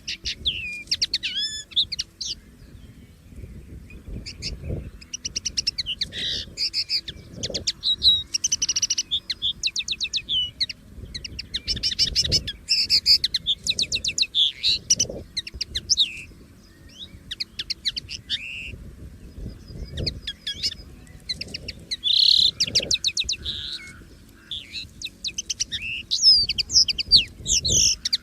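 Common linnet singing: rapid, varied twittering phrases of chirps and short trills, delivered in runs of several seconds with brief pauses between them, over a low rumble.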